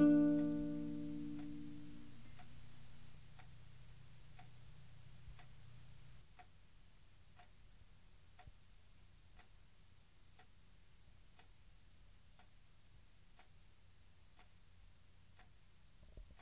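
A few plucked-string notes ring out and fade over the first couple of seconds. Then a wall clock ticks quietly and steadily, a little under two ticks a second.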